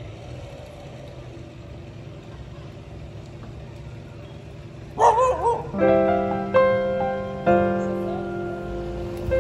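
Steady low outdoor background noise. About five seconds in it gives way to a brief, loud, wavering yelp. Then solo piano music starts, its struck notes ringing and fading one after another.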